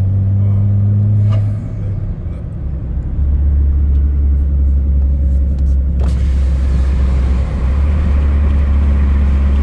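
Worn Ohtsu FP8000 tires rolling on the road, heard inside the cabin of a moving 2019 Chevy Cruze as a loud, steady low drone, a noise the driver likens to big 4x4 truck tires. The drone eases off about a second and a half in and comes back up about three seconds in.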